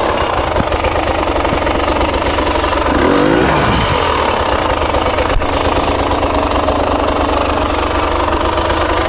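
Husqvarna TE300i two-stroke enduro motorcycle engine idling, with one throttle blip about three seconds in that rises and falls back. A single sharp click a little past halfway.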